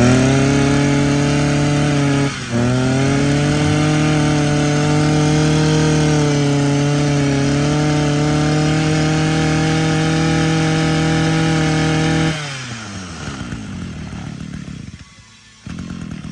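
Echo (Kioritz) 23cc two-stroke brush cutter engine running at a steady speed, with a brief dip about two seconds in, then shut off about twelve seconds in, its pitch falling away.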